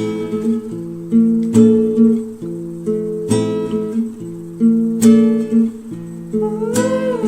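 Background music: an acoustic guitar strumming chords, a new strum about every one and a half seconds, with a voice starting to sing near the end.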